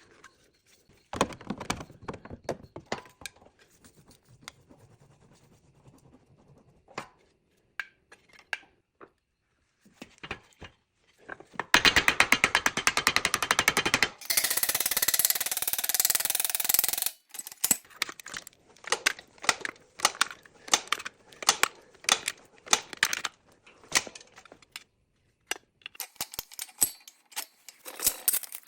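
Metalworking on a rusty car body: scattered taps and short bursts of a power tool, then a loud rapid rattling burst about twelve seconds in, running on as a steady hiss for about three seconds, followed by more short bursts.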